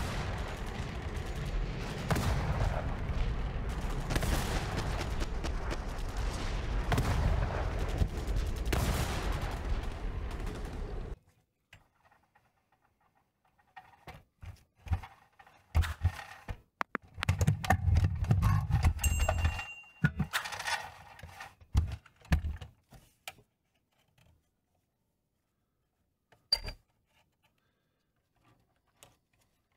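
Rapid machine-gun-style gunfire, dense and continuous, that cuts off suddenly about eleven seconds in. Then gloved hands handle the old pressed-steel toy truck, with clunks and scrapes of metal on the bench and one sharp knock near the end.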